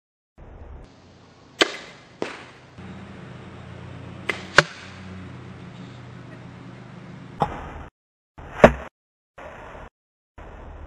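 Arrows striking a bag archery target: about six sharp hits, some in close pairs, the loudest about halfway through and near the end.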